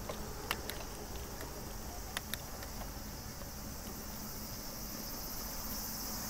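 Steady high-pitched insect chorus, like crickets, with a few sharp clicks near the start and about two seconds in.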